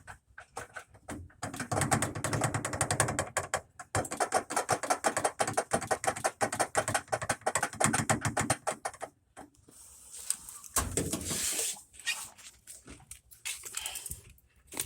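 LG WM0642HW front-load washer on spin, its tub knocking and rattling rapidly against the cabinet, loud from about a second and a half in until it dies down about nine seconds in. This is the loud banging of a tub whose shock absorbers are worn out.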